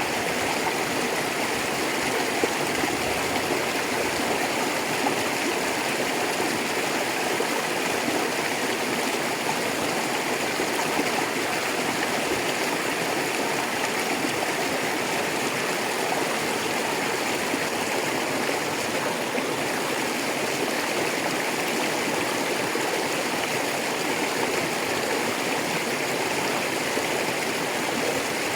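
A rocky river flowing steadily, water rushing and splashing over stones in a continuous even wash.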